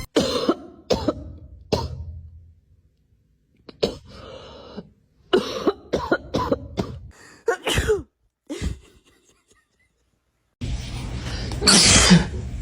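A person sneezing: a run of short, separate sneezing bursts, then, over a steadier background, one loud sneeze near the end.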